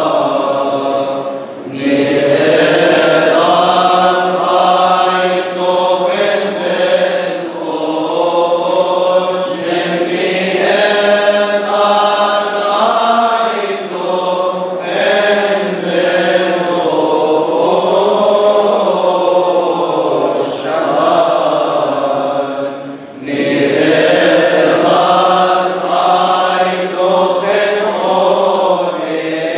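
Coptic Orthodox liturgical chant sung by men's voices: a slow, melismatic line of long, wavering held notes. It breaks off briefly about two seconds in and again about twenty-three seconds in.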